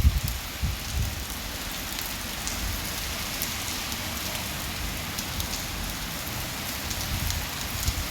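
Mild rain falling steadily with scattered drop ticks, under strong gusting wind that rumbles low, heaviest at the start and swelling again near the end.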